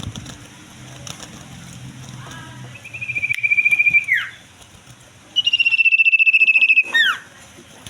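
Common iora (cipoh) singing in full breeding condition: two long, rapid trills held on one high pitch, about three and five and a half seconds in, each ending in a quick downward slur.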